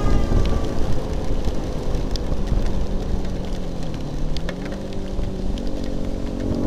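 Husqvarna 125 cc four-stroke supermoto engine running while riding in heavy rain on a wet road, under a steady hiss of rain and road spray, with scattered raindrop ticks. The engine note drops about four seconds in and then picks up again.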